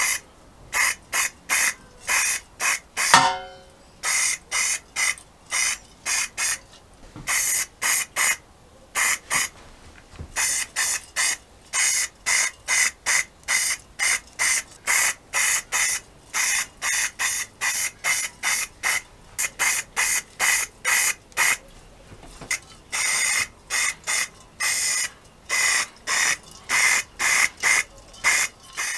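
Aerosol spray paint cans sprayed in dozens of short hissing bursts, a fraction of a second each, laying primer and then a top coat. A brief falling squeal about three seconds in is the loudest moment.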